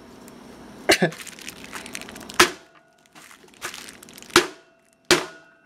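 Bubble wrap crinkling and four sharp knocks, some with a brief ring, as blown-glass pipes wrapped in bubble wrap on a metal tray are struck to break them. The pipe holds and does not shatter.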